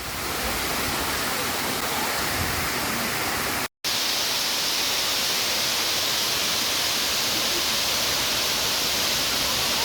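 Waterfall: falling water rushing as a steady, even noise, with a split-second dropout just under four seconds in.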